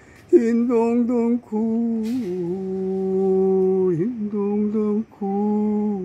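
A single voice singing a wordless melody in long held notes, wavering at first and then steady, with short breaks about a second and a half, four and five seconds in.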